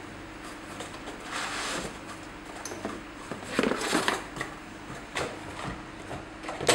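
Cardboard box being opened and handled: rustling and scraping of cardboard as a large LED corn bulb is slid out of it, then a sharp knock near the end as the bulb is set down on a shelf.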